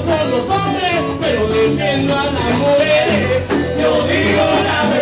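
Live cubaton band playing, with a lead singer's vocal line over keyboard, drums and bass.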